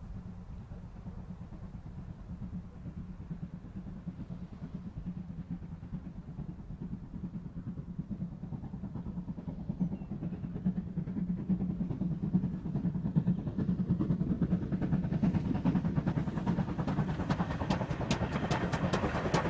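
GWR Churchward 4300-class 2-6-0 mogul steam locomotive No. 7325 working a passenger train, its exhaust beats and running gear growing steadily louder as it approaches. The rhythmic beats come through most strongly in the last few seconds.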